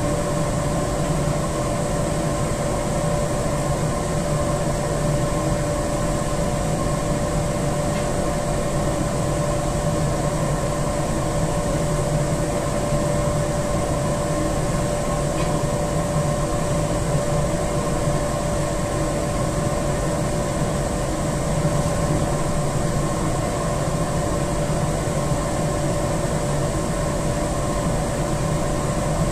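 Steady hum of running industrial boiler-room machinery, with a constant high whine over a low drone.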